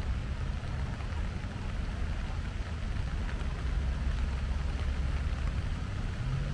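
Rain falling steadily, with a constant low rumble underneath.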